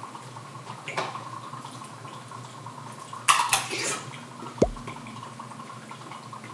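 Small handling sounds at a dining table over a faint steady hum: a sharp click about a second in, a brief clatter a little after three seconds, and a short drip-like plop near the middle.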